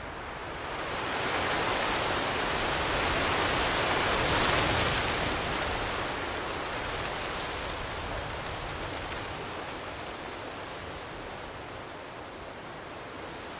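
Wind blowing in a gust that swells over the first couple of seconds, peaks about four to five seconds in, then slowly eases back to a steady rush.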